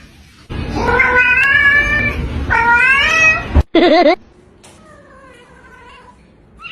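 A cat meowing loudly in a few long, drawn-out calls that rise in pitch, then a short wavering call about four seconds in, followed by fainter meows.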